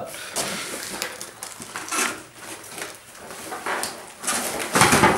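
Cardboard monitor box being pulled open: the flap and tear tab scrape, creak and rustle in uneven bursts, with a louder knock near the end.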